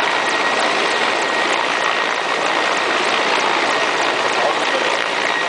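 Mi-17 transport helicopter hovering low overhead: a loud, steady rushing of rotors and turbines with a thin, steady whine above it.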